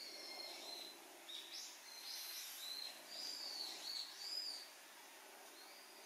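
Birds calling: a run of faint whistled notes that rise and fall, overlapping most thickly around the middle.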